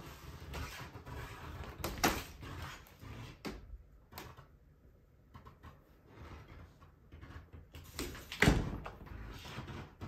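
A door being handled: a few sharp knocks and clacks as it is opened and shut, the loudest thump near the end, over a rustle of handling noise.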